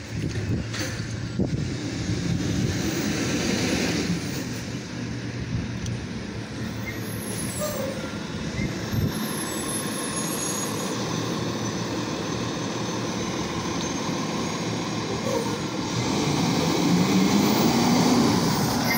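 Garbage truck engine running as the truck approaches, growing louder over the last few seconds as it draws near.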